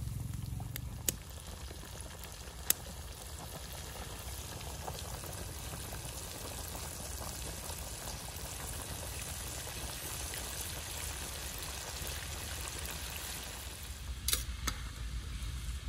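Hot oil sizzling steadily in a wok with food frying in it. There are two sharp clicks in the first few seconds, and a quick cluster of clicks near the end as metal tongs work against the pan.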